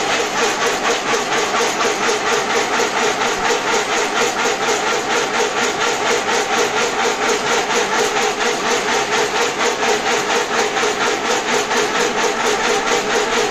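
Fully automatic agarbatti (incense stick) making machine running, its mechanism clattering in a fast, even rhythm of about three to four strokes a second, over a steady hum.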